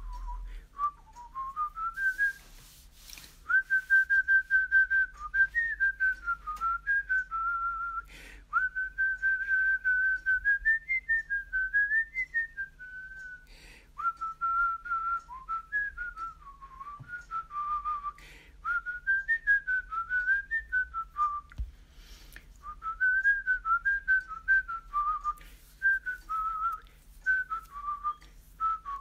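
A person whistling a tune: a string of quick notes with small slides, in phrases separated by short gaps.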